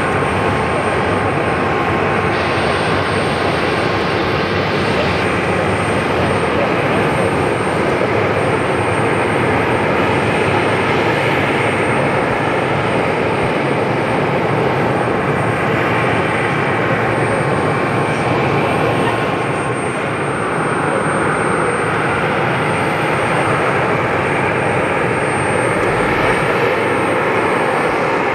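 Boeing 737-800's CFM56 turbofan engines running at taxi power, a steady jet engine noise with no rise or fall.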